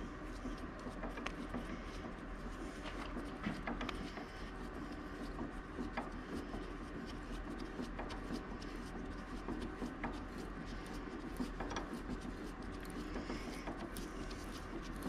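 Spiral-flute tap turned by hand in a milling machine's drill chuck, cutting a thread in aluminium: faint irregular clicks and rubbing as it goes straight through with almost no effort, over a steady low hum.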